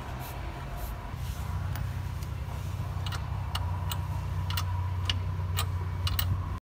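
Metal clinks and clicks of a socket wrench on a car's wheel nuts as the wheel is bolted back on, about a dozen sharp, irregular clicks in the second half over a steady low rumble. The sound cuts off abruptly near the end.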